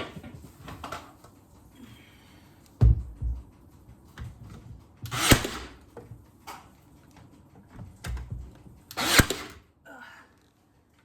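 Wooden trim pieces knocking and thudding as they are handled and fitted against a cabinet, with two louder, sharper bangs about four seconds apart.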